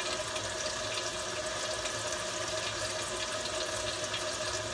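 Kitchen faucet running cold water steadily, heard from the cabinet under the sink, with a steady hum underneath.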